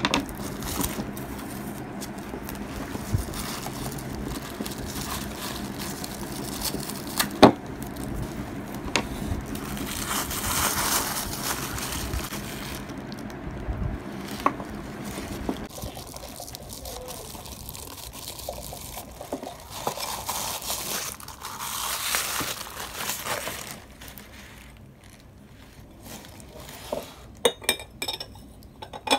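Tissue paper and plastic wrapping rustling and crinkling as they are pulled off a glass teapot, in uneven spells, with a few sharp clicks of the glass being handled; the loudest click comes about seven seconds in.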